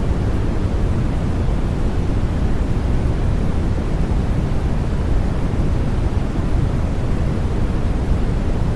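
Steady white-noise sleep sound for babies: an even, unbroken hiss weighted toward the low end, deep rather than bright, with no changes or events.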